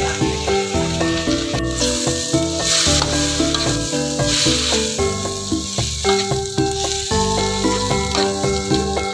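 Water spinach sizzling as it stir-fries in a hot wok, under instrumental background music.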